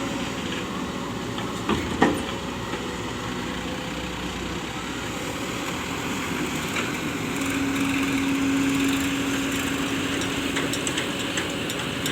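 Heavy excavator's diesel engine running steadily, with two sharp knocks about two seconds in. A steady hum joins for a few seconds past the middle.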